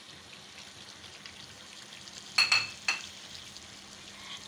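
Mutton and sliced tomatoes frying in hot oil in a non-stick pan, a steady sizzle. About halfway through come two sharp ringing clinks about half a second apart.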